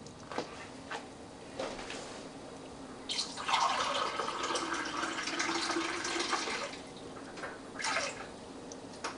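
A measuring cup of water poured into a pan of dry quinoa, a splashing pour of about three and a half seconds, then a short splash and drips.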